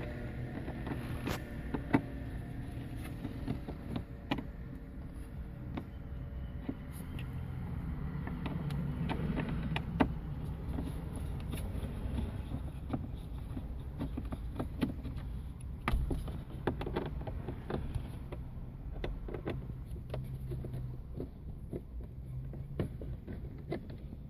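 Scattered plastic clicks and knocks of a car's dashboard being worked on by hand, over a steady low rumble.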